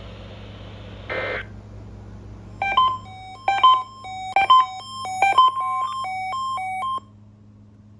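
A rapid series of short electronic beeps at two or three different pitches, lasting about four seconds and ending abruptly, heard over a radio with a steady hum; a brief burst of static comes about a second in.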